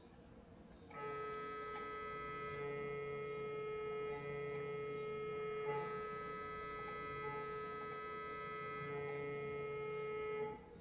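Siemens MRI scanner's gradient coils sounding a steady multi-tone hum during a breath-hold T2 HASTE multi-slice axial scan of the liver. It starts about a second in and cuts off shortly before the end as the acquisition finishes.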